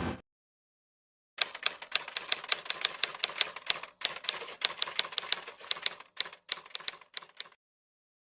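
Rapid, irregular key clicks like a typewriter typing, about four to five a second with short pauses, starting about a second and a half in and stopping shortly before the end. Just before them the excavator's engine sound cuts off abruptly.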